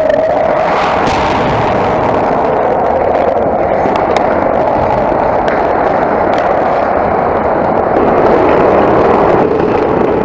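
Ice hockey rink sound during play: a steady, loud rushing noise with a constant hum and a few faint clicks, its tone shifting slightly near the end.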